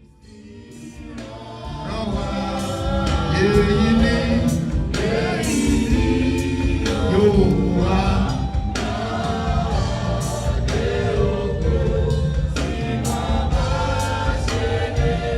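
Gospel music: a choir singing over instrumental backing with a drum beat, fading in from silence over the first couple of seconds.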